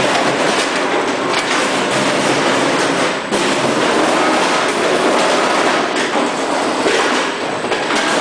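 Frozen chicken pieces clattering through a Yamato multihead weigher's feeders and hoppers: a loud, dense, continuous rattle full of small knocks.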